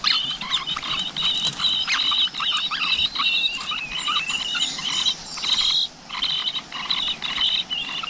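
Nestling birds begging with rapid, high-pitched chattering calls in short runs, the hungry begging of chicks being fed at the nest.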